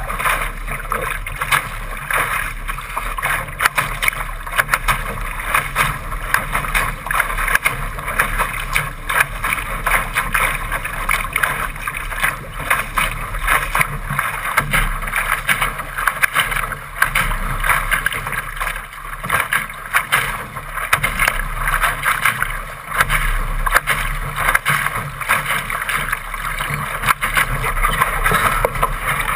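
Water rushing and splashing along the hull of a Laser sailing dinghy as it moves fast through choppy water. It is a steady wash of spray with many small slaps and crackles of waves hitting the hull.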